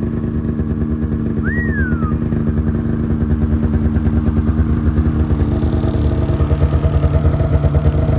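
2024 Polaris Switchback Assault Boost's turbocharged 650 two-stroke snowmobile engine idling steadily with a fast, even pulse on its first start. A short high chirp rises and falls about a second and a half in.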